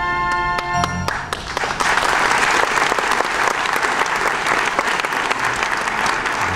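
A song's final held note, sung with orchestral accompaniment, ends about a second in, and the theatre audience breaks into steady applause.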